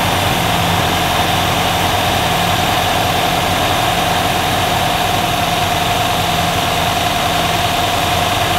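Rover P6's V8 engine idling steadily, with a steady whine above the idle, while the twin SU carburettors' mixture screw is turned. The engine is still running somewhat lean.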